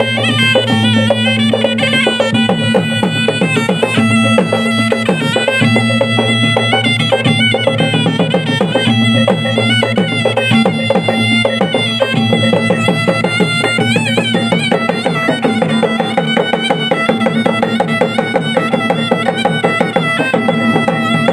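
Traditional Makassarese Tunrung Pamanca ensemble playing: gendang drums beating fast, dense rhythms under a reed pipe's wavering melody and a steady low drone.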